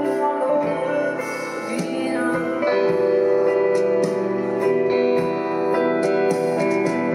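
Live band playing a slow song led by guitar, with a woman singing over it in the opening seconds while the band plays on.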